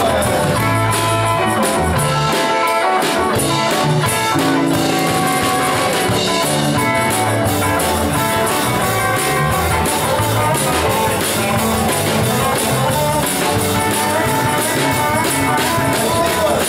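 Live rock-and-roll band playing an instrumental stretch, electric guitars to the fore over a steady drum beat, with no singing.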